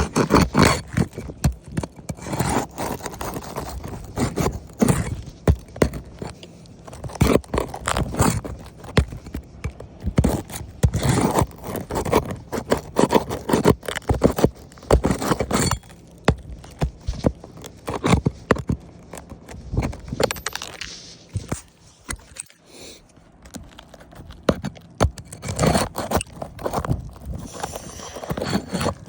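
A roof shingle being pried loose by hand. There are repeated irregular scraping and knocking sounds as the fasteners holding it are worked out.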